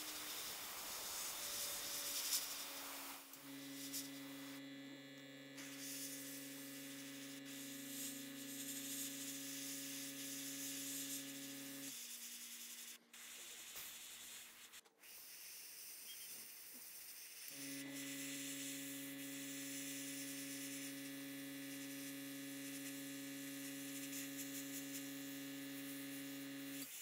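Airbrush spraying at low pressure, about 12 psi, a soft steady hiss of air. Under it a small electric motor hums steadily; the hum starts a few seconds in, cuts out for about five seconds midway, then starts again.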